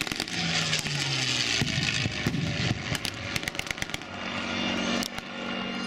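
North American P-51 Mustang's Packard Merlin V-12 engine in a fast low pass, its pitch dropping as it goes by, with a rapid crackle of exhaust pops.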